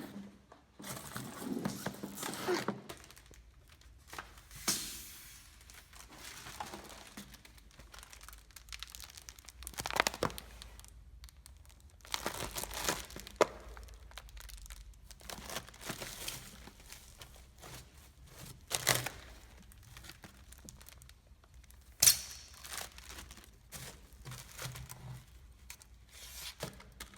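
Packaging being torn and crumpled by hand as a parcel is unwrapped: irregular rustling and crinkling, broken by several sharp clicks and knocks, the loudest about 22 seconds in.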